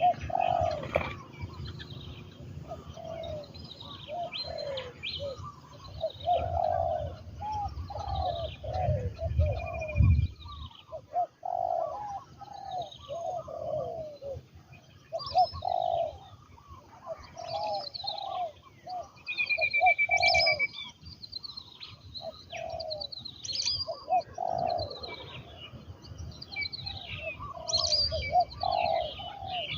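Spotted dove cooing over and over in short, rounded notes, the call a decoy-trained dove makes to draw wild doves. Small birds chirp at a higher pitch alongside it. A low rumble stops about ten seconds in.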